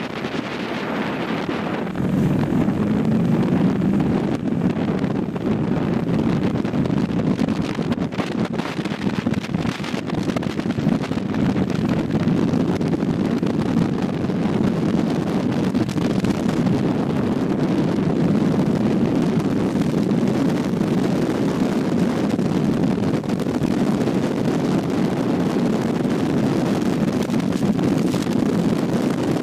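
Buell Ulysses XT motorcycle's air-cooled V-twin engine running while riding, mixed with wind rushing over the microphone. The sound steps up louder about two seconds in and then holds steady.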